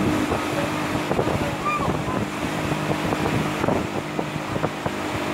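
Motorboat engine running steadily under way, with wind on the microphone and irregular splashes of water against the hull.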